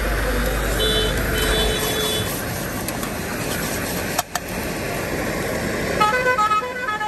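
Busy street traffic noise with a vehicle horn honking twice, about a second in. Near the end, a short run of stepped musical notes begins.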